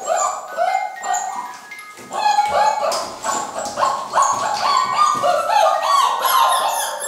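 A litter of beagle puppies yapping and whining, many short high cries overlapping in quick succession.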